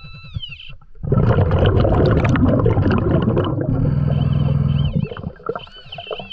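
Underwater burst of a diver's exhaled air bubbling and rushing past the camera for about four seconds, with faint warbling tones before and after it.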